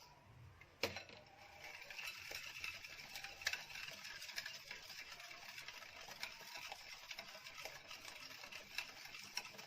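Electric hand mixer beating eggs, sugar and oil in a bowl: a sharp click about a second in, then the beaters running steadily with a busy, clattering whir.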